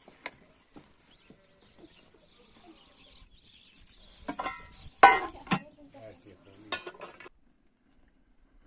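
Metal utensils and cookware clinking and knocking while cooking, with scattered light clicks, a short clatter about five seconds in that is the loudest knock, and the sound cutting off suddenly near the end.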